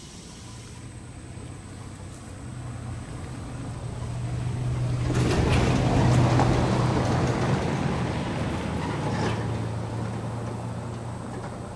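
A motor vehicle passing by: a low engine hum and tyre noise swell to a peak about six seconds in, then fade away.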